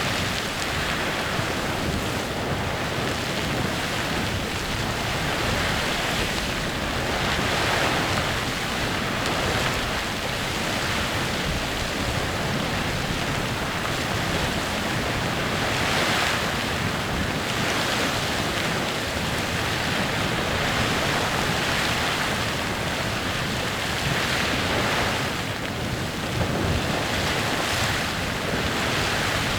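Clepsydra Geyser erupting continuously: a steady hissing rush of spraying water and steam, swelling and easing every few seconds.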